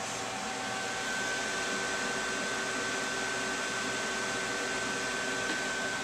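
Desktop computer cooling fans running steadily at speed, an even whooshing hiss with a thin high whine that comes in about a second in. The fans are cooling an overclocked AMD FX-8120 under a full Prime95 torture-test load.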